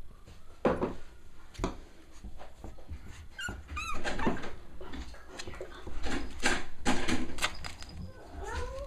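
Cavalier King Charles Spaniel puppies playing and scuffling with soft toys: a run of small knocks, scrabbles and rustles, with a short high wavering squeal about four seconds in.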